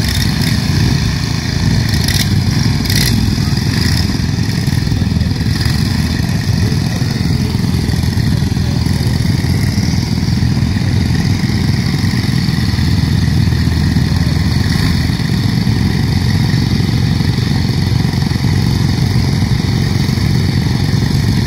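Several ride-on lawn mower engines running together steadily while the racing mowers sit stationary, a loud, unbroken engine drone.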